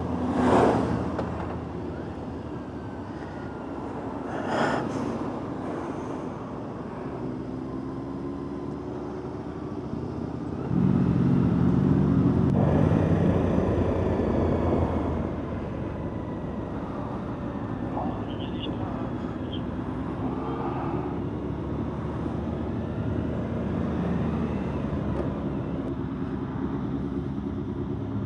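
Motorcycle engine running steadily at road speed with wind and road noise on an onboard camera. There are two short rushing swells near the start, and a louder, deeper engine stretch from about 11 to 15 seconds in.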